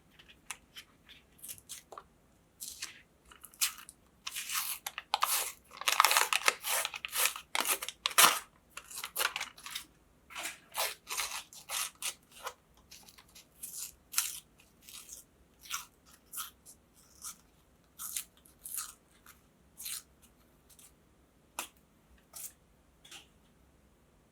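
Crisp wafer ice cream cones crunching and cracking as a meat grinder crushes them: a dense, loud burst of crackling about four to eight seconds in, then scattered crackles that thin out toward the end.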